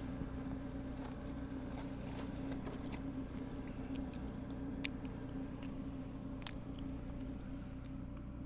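Generator running steadily in the background, a low even hum, while batteries charge. Two short sharp clicks sound about halfway through, a second and a half apart.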